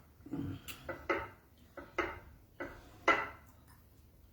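Cutlery clinking and scraping on a plate during a meal of beans and fried plantain: a handful of short, sharp sounds spaced irregularly through the few seconds.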